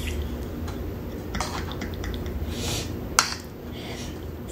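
A spoon and fork clinking and scraping against a small dipping cup and a plate while eating, a few separate clicks with the sharpest about three seconds in, over a steady low hum.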